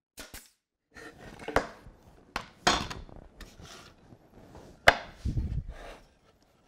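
A pneumatic nailer fires into plywood, two quick sharp snaps near the start, then plywood jig parts are handled on a wooden workbench, with irregular knocks, clatters and scraping and one loud knock about five seconds in.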